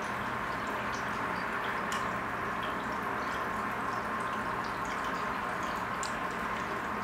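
Aquarium water trickling and bubbling steadily, with scattered small drips and pops.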